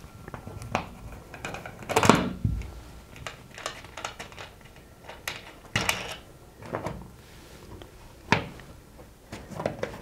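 Screwdriver undoing the screws of a plastic light switch faceplate: irregular small clicks and scrapes of the blade turning in the screw heads, with a few louder clicks.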